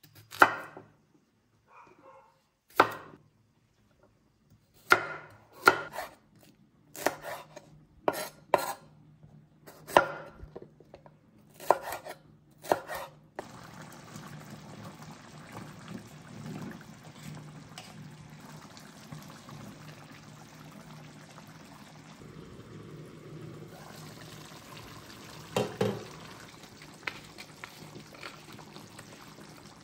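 Kitchen work: a dozen or so sharp, irregular knocks on a hard surface, like a knife or cookware on a counter, over the first thirteen seconds. Then a steady hiss with a low hum.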